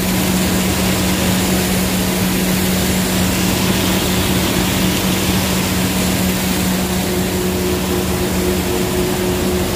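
Industrial blade shredder for plastic running under load, with water spraying through the chute: a constant, loud motor hum under a steady noisy rush.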